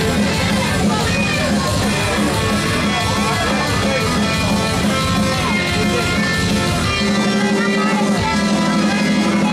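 Amplified electric guitar, a red SG-style solid body, playing a rock melody line over a full low accompaniment; the low end thins out about seven seconds in, leaving a held low note under the melody.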